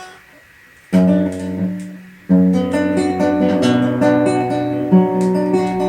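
Acoustic guitar strumming the introduction to a song: a single chord about a second in that rings and fades, then steady strumming from just past two seconds.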